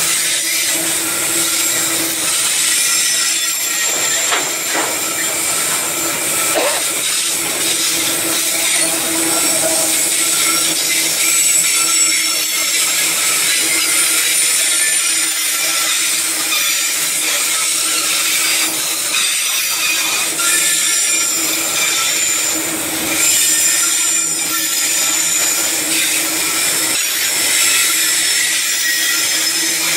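Loaded bauxite hopper wagons rolling steadily past: a loud, continuous rush of steel wheels on rail, with thin high-pitched squealing tones running through it.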